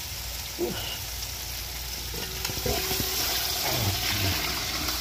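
Curry paste sizzling in hot oil in a metal pot, then seasoned duck pieces being stirred and turned in it, with spoon knocks and scrapes against the pot. The sizzle gets louder about halfway through.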